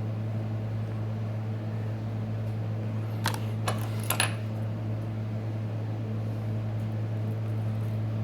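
A steady low machine hum throughout, with a few small sharp clicks and taps about halfway through: a small tool picking leftover broken glass off a smartphone's frame.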